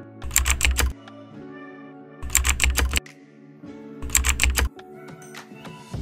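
Keyboard-typing sound effect: three short bursts of rapid key clicks, each over a low thud, with soft background music beneath.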